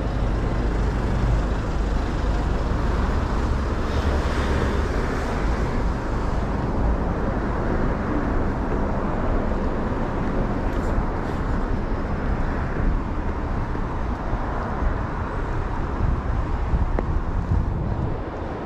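Steady road traffic noise from a multi-lane city street, with a constant low rumble.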